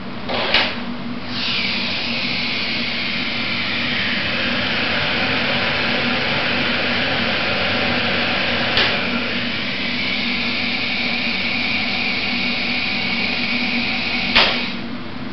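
A 1980s passenger lift car travelling between floors: a steady mechanical hum with a rushing hiss that builds about a second in and eases off near the end. Sharp clicks come about half a second in, midway, and again near the end.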